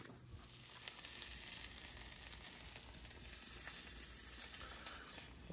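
Food frying in a pan: a steady sizzle with small crackles.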